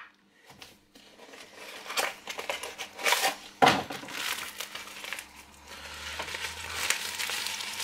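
Thin plastic of a deflated inflatable ring toss game crinkling and rustling as it is handled and unfolded, with louder crackles about two, three and almost four seconds in.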